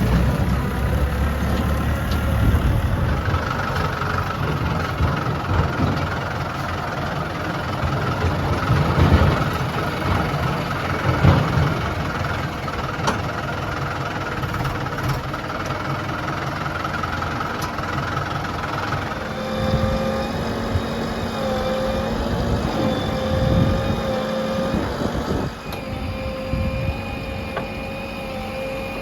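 Diesel engine of heavy road-construction machinery running steadily, its pitch changing to a new steady note about two-thirds of the way through.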